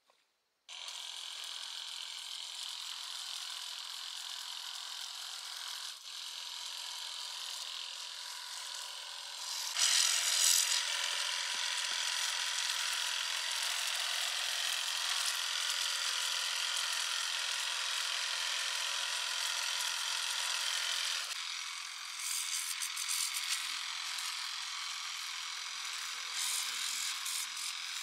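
A small electric power tool switched on under a second in and running steadily with a thin whine. It gets louder and harsher about ten seconds in, then lighter again about twenty-one seconds in.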